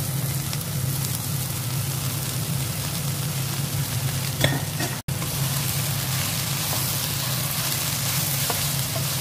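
Chicken and vegetables sizzling as they are stir-fried in a nonstick kadai, with a spatula stirring and scraping through, over a steady low hum. A short sharp knock comes about four seconds in, and the sound drops out for an instant a moment later.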